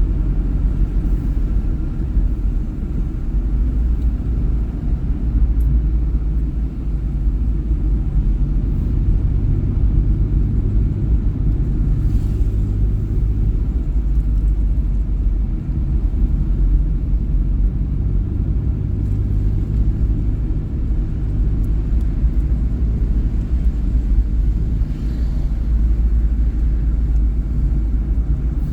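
A vehicle driving along a road: a steady low rumble of engine and road noise that holds even throughout.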